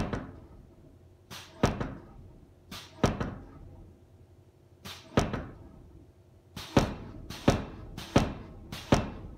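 Homemade pneumatic forging power hammer, its 69 kg ram striking the railway-line die in single blows worked from a foot treadle. Each strike is led by a brief hiss and rings out briefly; about eight blows, slow at first and coming faster in the last few seconds.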